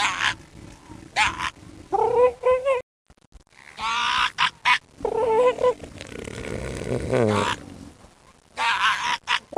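Sea lions calling: a series of about half a dozen short, pitched cries that waver and glide up and down in pitch, with a pause of about a second a few seconds in.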